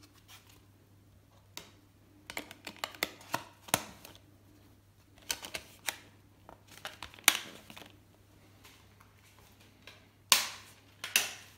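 Plastic Blu-ray cases and discs being handled: scattered clicks and taps in quick clusters. Near the end come a couple of louder, longer scrapes and knocks as cases are moved about on a wooden table.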